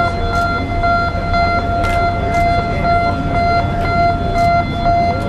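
Lock warning alarm at a Panama Canal lock gate, a steady high electronic tone with overtones, dropping out briefly a few times as the lock opens. Beneath it runs a low steady rumble.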